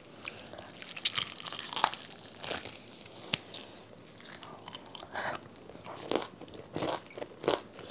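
A person biting into and chewing crisp-coated homemade fried chicken: irregular crackly crunches of the crust between bites and chews.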